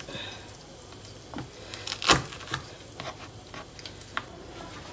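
Stainless steel garlic press knocking and clicking against a plastic cutting board as garlic cloves are crushed: a few scattered knocks, the loudest a sharp one about two seconds in.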